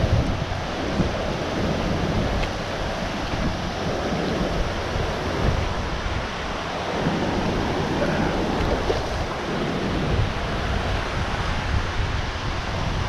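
Steady rush of water from a dam spillway, with wind buffeting the microphone in uneven low gusts.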